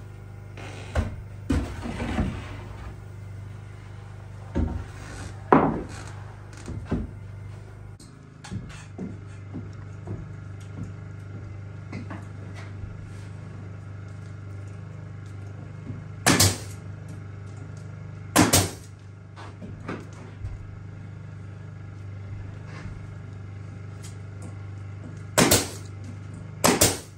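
Wooden floorboards being handled and knocked into place over a steady low hum, then a pneumatic nailer firing four times, each a short, loud snap with a puff of air, nailing site-milled floorboards down to the subfloor: two shots about two seconds apart past the middle and two more near the end.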